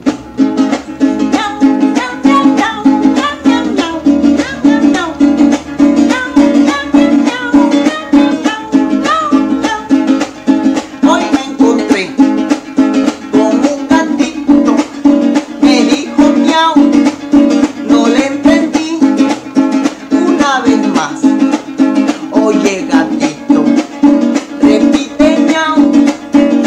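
Small acoustic guitar strummed in a steady rhythm, with a man singing along.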